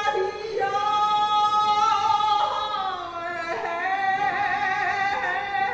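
A woman's voice singing a few long, held notes, the last one wavering.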